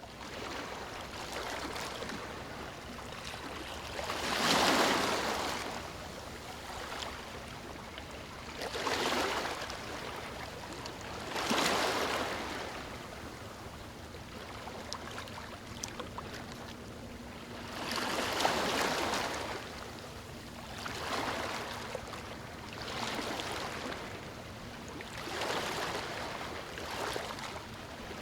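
Ocean waves washing onto a shore: seven or so waves surge and break, a few seconds apart, over a steady wash of surf.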